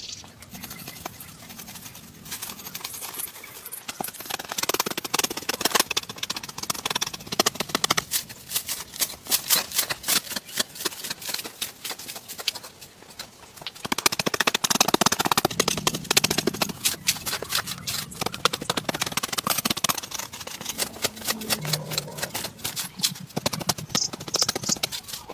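Rapid knocking and tapping: many sharp strikes close together, louder from about four seconds in and again from about fourteen seconds in.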